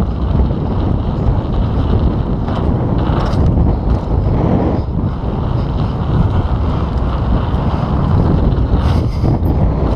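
Wind rushing over an action camera's microphone as a mountain bike rolls fast down a gravel track, with tyre noise and the bike's parts rattling over the bumps.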